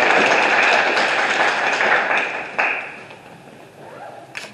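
Applause from several people clapping, dying away about three seconds in, with a couple of short clicks near the end.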